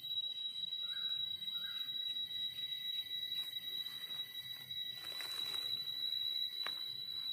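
Quiet scraping and rustling as a small knife cleans soil off a wild mushroom's stem and digs into leaf-littered forest soil, with a louder rustle about five seconds in. A steady high-pitched whine runs throughout, and two short chirps come about a second in.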